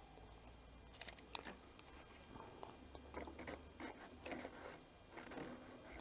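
Faint, irregular clicks and scrapes of small carburetor parts being fitted together by hand on a Victa two-stroke mower engine.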